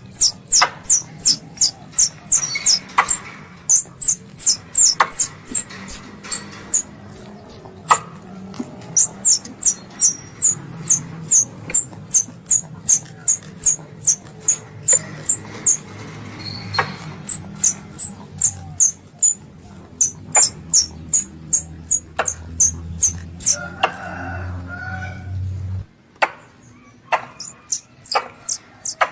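Squirrel lure call: a long run of short, sharp, high-pitched chips, about three a second, broken by a few brief pauses. A low steady hum runs under it and stops shortly before the end.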